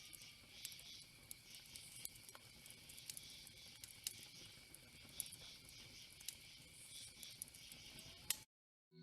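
Faint natural ambience bed: a steady thin high tone over a soft hiss, with scattered small ticks, cut off abruptly about eight and a half seconds in.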